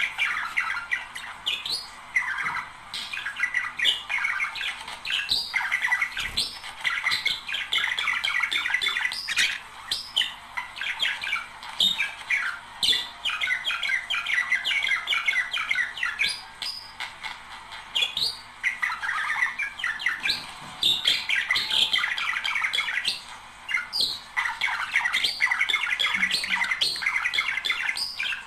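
A pair of budgerigars chattering, warbling and chirping rapidly, with short breaks in the song. This is the kind of song played to stimulate budgies to breed.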